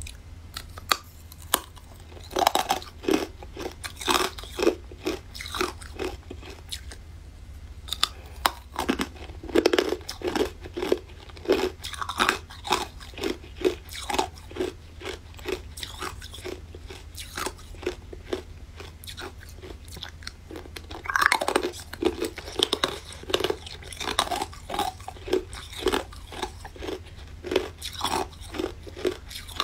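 Close-miked biting and crunching on paw-shaped frozen ice treats: a brittle crack at each bite, then fast crunching between the teeth, several crunches a second, with the loudest bites about 2, 9 and 21 seconds in.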